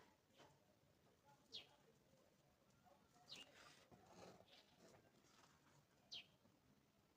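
Near silence, broken by three faint, short, high bird chirps that fall in pitch, a couple of seconds apart.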